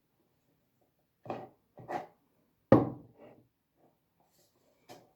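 Handling sounds from objects on a table: a few short knocks and rubs, with one sharp knock near the middle the loudest.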